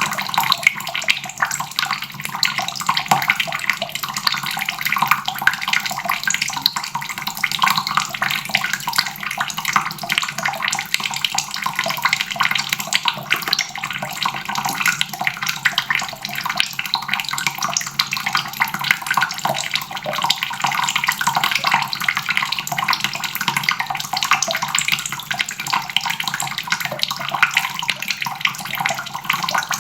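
Water tap running steadily, a stream splashing into a basin with dense, continuous splatter.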